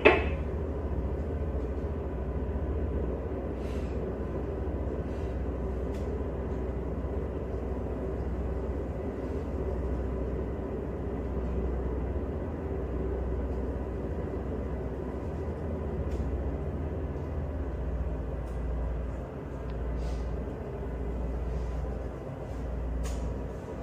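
Tugboat engines running, heard from inside the wheelhouse as a steady low drone with a faint humming tone over it. A short knock comes right at the start.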